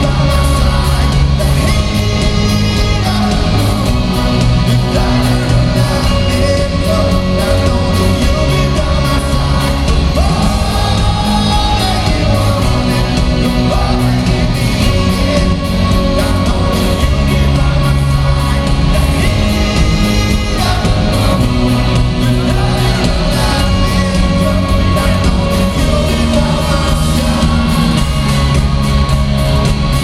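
A live rock band plays loud, with electric guitars, drums and a sung lead vocal. The sound echoes as in a big arena hall.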